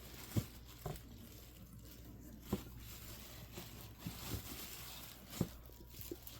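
Plastic packaging crinkling as vinyl doll-kit parts are unwrapped and handled, with several light knocks scattered through.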